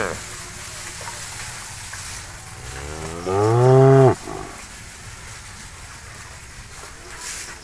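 A cow mooing once, a call about a second long about three seconds in, over low background noise.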